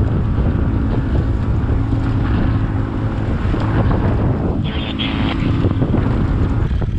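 Small boat's outboard motor running under way, with wind buffeting the microphone.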